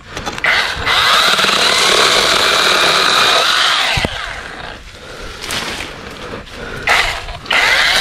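KEELAT 8-inch cordless electric mini chainsaw running under load as it cuts tree branches. It runs hard for about three and a half seconds, drops back with a few short surges, then runs hard again near the end.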